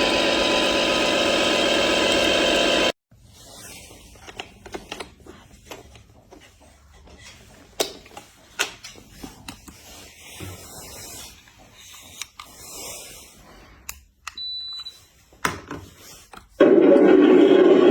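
Electric motor and gearbox of a toy remote-control dump truck whirring steadily as it drives loaded with bricks, cutting off abruptly about three seconds in. Then come quiet scattered clicks and knocks and a brief high beep. A loud motor whir starts again near the end.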